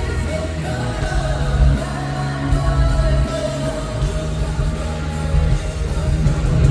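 Live amplified pop-rock music from a concert sound system: a male vocalist sings over heavy bass and a band, holding one long note through the first half.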